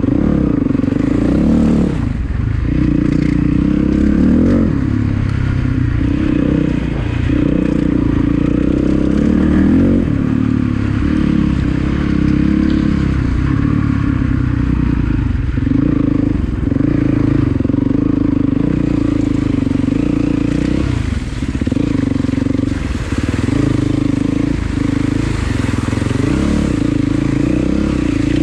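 Enduro motorcycle engine running under load, its revs rising and falling as the throttle is worked.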